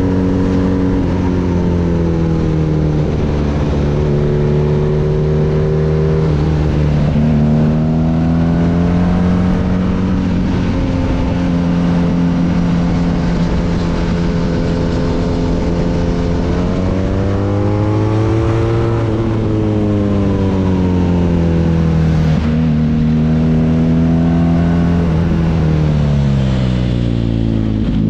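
BMW R nineT's 1170 cc boxer twin through an Akrapovic exhaust, ridden on the road. The engine note climbs under throttle, drops with gear changes, and sinks when the bike slows. This happens several times, with the longest rise and fall in the second half.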